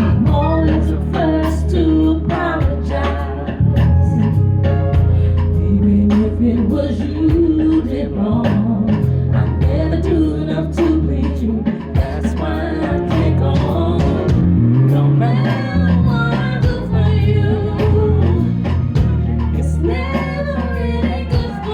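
An R&B song performed live over a loud backing track with heavy bass and a steady beat, and a singer's voice sliding through wordless, drawn-out runs.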